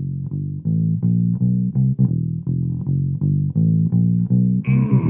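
Intro music: a low plucked bass riff repeating at about four notes a second. A hissing noise joins it near the end.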